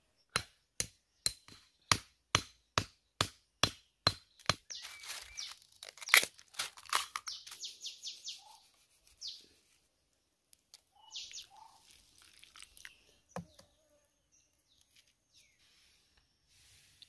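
A knife tapping on a green bamboo stalk: about eleven sharp, evenly spaced clicks, roughly two a second. These are followed by several seconds of crackling and tearing as the bamboo is worked apart.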